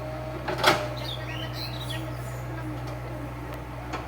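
Tractor engine idling with a steady low hum. There is a sharp knock about two-thirds of a second in, and faint chirps in the middle.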